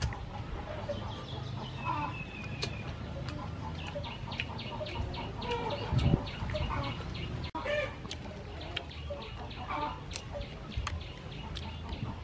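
Chickens clucking, with a fast high ticking of about five beats a second for several seconds in the middle.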